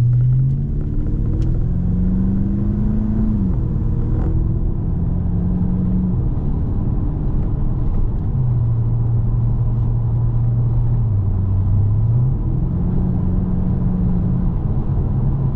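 2015 Holden Caprice V's 6-litre V8 through a J-pipe exhaust, pulling away with its pitch rising and then dropping at an upshift about three seconds in. It then runs steadily at road speed, with more pitch changes near the end, over a constant low rumble of road noise.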